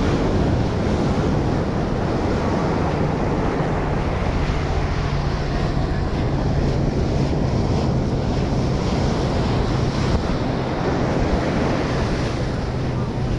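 Ocean surf washing onto a sand beach, mixed with wind noise on the microphone: a continuous, even rush without breaks.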